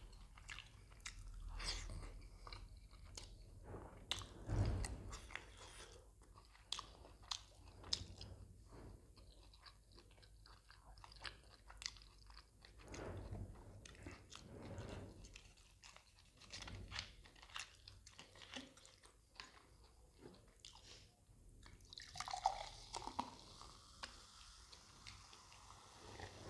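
Close-miked chewing and biting of mutton botti (tripe) curry, with many short wet clicks. Near the end, cola is poured into a glass and fizzes with a steady hiss.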